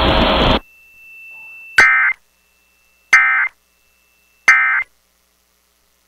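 Emergency Alert System end-of-message code on NOAA Weather Radio: three short, harsh digital data bursts about a second and a half apart, marking the end of the tornado warning. Radio static hiss cuts off about half a second in, just before the bursts.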